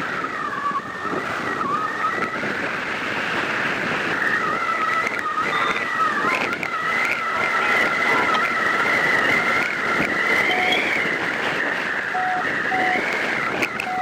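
Airflow rushing over a camera microphone on a hang glider in flight, with a steady high whistle-like tone that slowly wavers in pitch. A few short, lower beeps come in near the end.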